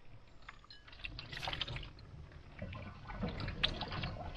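Water poured from a teapot trickling over a plate and splashing into a sink, rinsing the soap off the dishes.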